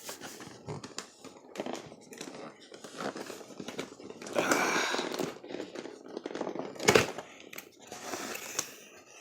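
Cardboard box and plastic packaging being opened by hand: irregular rustling, crinkling and scraping, with a longer rustle about four to five seconds in and a sharp snap or knock around seven seconds in, the loudest moment.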